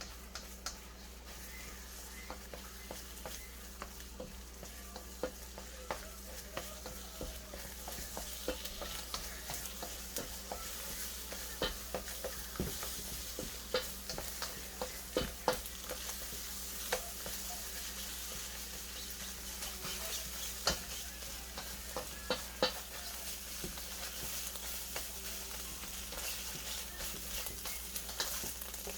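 Beaten eggs scrambling in hot oil in a pot: a steady sizzle with a utensil clicking and scraping against the pot as they are stirred. The sizzle grows louder about eight seconds in.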